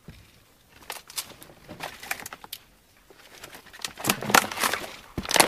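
Footsteps on loose brick rubble: irregular crunching and clattering of broken bricks and debris underfoot, busiest and loudest near the end.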